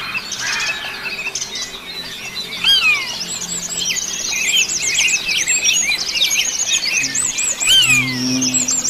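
Several birds chirping and singing at once, a dense chorus of many overlapping short, rising-and-falling notes.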